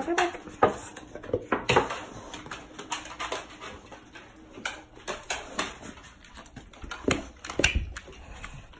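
Two dogs, one a golden retriever, eagerly crowding around offered plates of food: a brief dog whine at the start, then scattered clicks and taps from paws, collar tags and the paper plates, with two heavier thumps near the end as the plates are set down on the floor mat.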